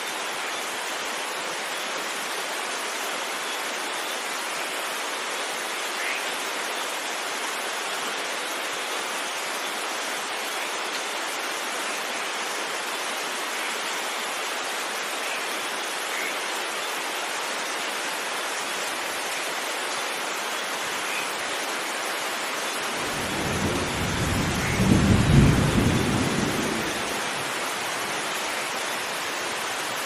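Heavy rain falling steadily, with one rumble of thunder that swells about three-quarters of the way through and dies away over a few seconds.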